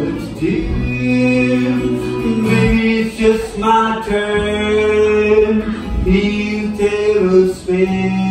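Live country song: a singer holding long, slow notes over a strummed acoustic guitar.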